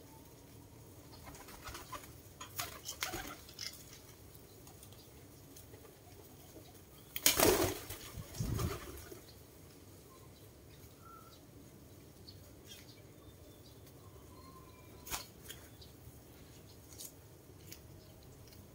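Fancy pigeons flapping their wings: a loud flurry of wingbeats about seven seconds in, a shorter one right after it, and lighter flutters and knocks before and after.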